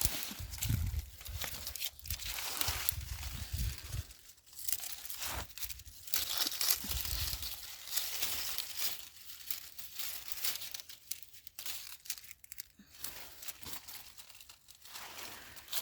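Dry leaves and plant stems rustling and crackling irregularly as crops are picked by hand, with low rumbles during the first four seconds.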